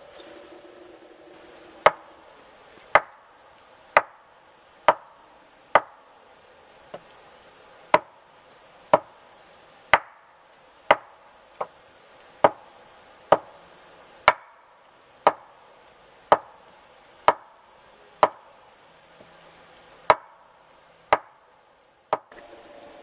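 Chopping: a tool striking down about once a second in a steady rhythm, some twenty sharp knocks with a short ring after each.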